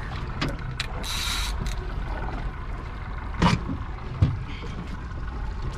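Boat's engine running low and steady, with a short hiss about a second in and two sharp knocks a little after three and a half and four seconds.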